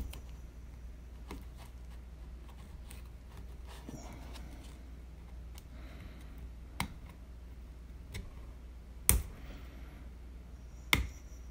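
A few sharp metal clicks and faint scraping as a steel hook pick pries at a ground-down rivet head in a Spyderco Manix2 Lightweight's handle, working it loose; the loudest click comes about nine seconds in, with another near the end.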